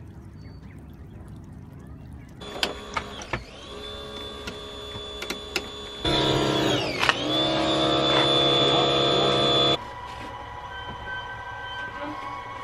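Electric chain hoist motor whirring steadily with a few clicks; about seven seconds in it is at its loudest, and its pitch sags briefly and recovers as if taking up load. The tone changes at two sudden cuts.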